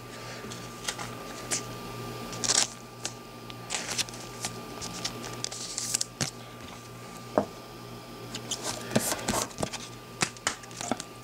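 A trading card being handled and slid into a clear plastic sleeve: scattered light clicks and brief rustles of card and plastic, over a faint steady hum.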